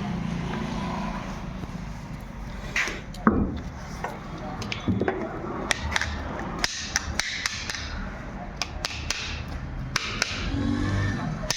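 Hand tools knocking and tapping on water pump parts during repair: a heavier knock about three seconds in, then a run of quick light taps through the second half.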